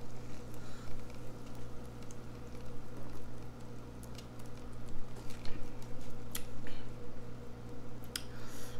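Soda being sipped and slurped from a paper plate: small wet mouth sounds and scattered soft clicks, more of them in the second half, over a steady low hum.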